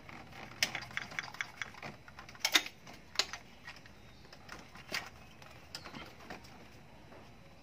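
Irregular plastic clicks and light knocks from hands working wiring harness clips and connectors on a Toyota 1TR-FE engine: a quick run of small ticks in the first second or so, sharper clicks around two and a half and three seconds in, another near five seconds, then only scattered faint ones.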